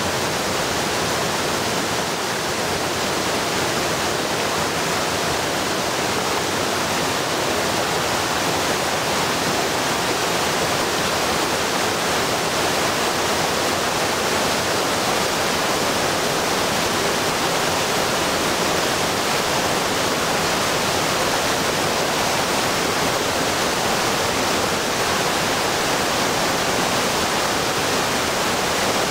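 Floodwater pouring over a weir and churning through the rapids below it: a steady, loud rush of water.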